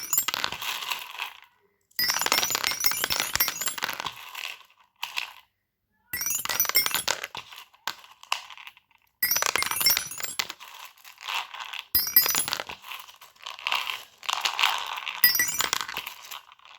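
Fidget toys being handled: a rapid clatter of small clicks, clinks and crinkles in several bursts, broken by sudden short silences.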